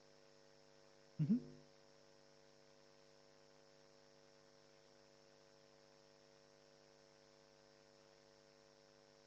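Steady electrical mains hum with a faint high whine on the microphone line. About a second in, one short voice sound rising in pitch is heard briefly.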